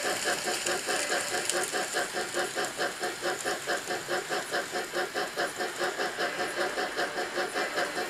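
N gauge model steam locomotive running with its train of corridor coaches, giving a steady, even beat of about three pulses a second. The train is running cleanly, without the dragging of a derailed coach.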